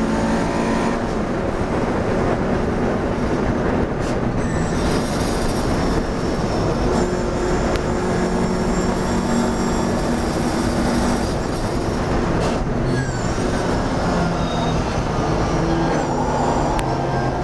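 Classic racing car's engine heard from inside the open cockpit, running hard and then easing as the car slows into a corner. Thin, high-pitched squealing whines sit over the engine note throughout.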